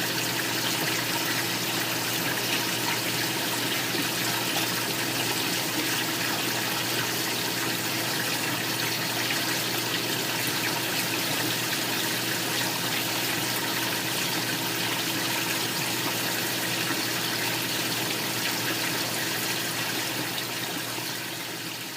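Large commercial aquarium's circulating water splashing and trickling, with a steady low hum beneath; it fades out near the end.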